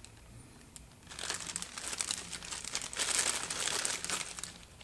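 Plastic Ziploc bag crinkling as it is handled and turned inside out. It starts about a second in and is loudest near three to four seconds.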